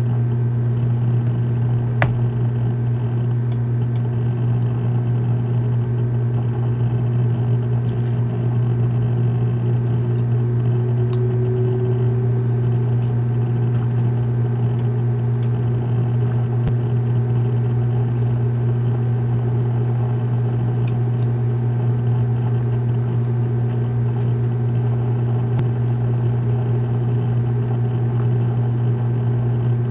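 Steady low hum with no change in pitch or level, and a few faint clicks here and there.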